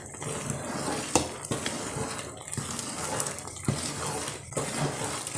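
Jaggery syrup in oil bubbling and sizzling in an aluminium pot, close to its set, as powdered edible gum is poured in, with a few sharp clicks.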